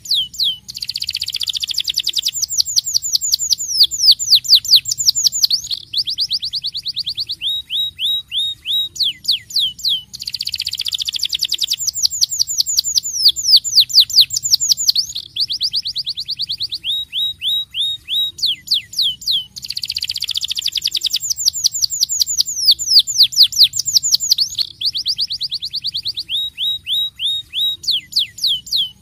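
Domestic canary singing a rolling song of rapid trills and fast downward-sweeping whistles. It sings in long phrases that start about every ten seconds and follow the same pattern each time.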